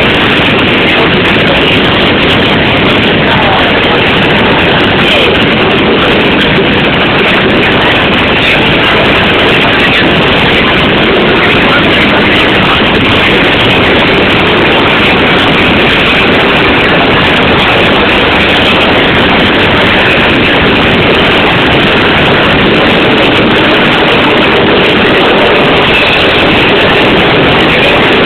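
Nilgiri passenger hill train running: a loud, steady rush of train noise that holds the same level throughout.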